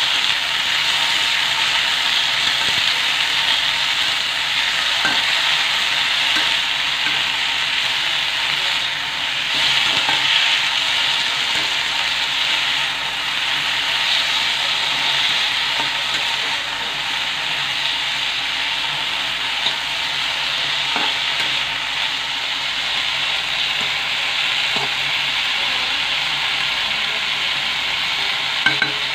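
Yardlong beans and sliced potatoes sizzling steadily as they fry in mustard oil in a black karahi. A spatula stirs them, with a few faint knocks and scrapes against the pan.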